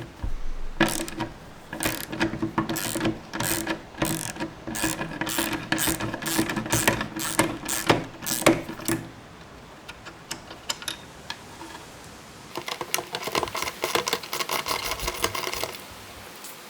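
Hand ratchet clicking in rapid runs as screws are backed out of the metal leg brackets, with a pause of a few seconds between two bouts.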